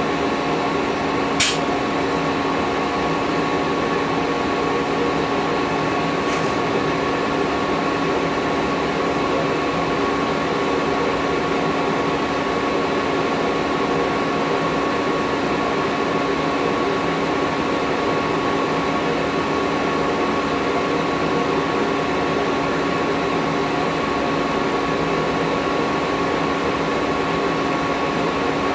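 KSI SQC-38 CNC Swiss lathe giving a steady mechanical hum with two steady tones, one low and one higher. A brief sharp click comes about a second and a half in.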